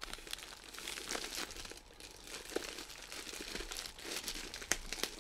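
Clear plastic bag crinkling and crackling as it is handled and opened by hand, in quick irregular rustles.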